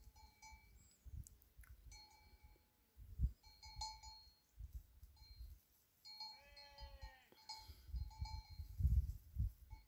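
Livestock bells clinking irregularly, with one bleat about six and a half seconds in. Gusts of wind rumble on the microphone, strongest near the end.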